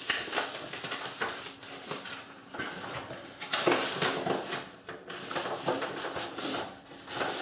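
Paper sheets rustling and shuffling as they are sorted and picked up, with irregular light knocks of things being handled on a bench top.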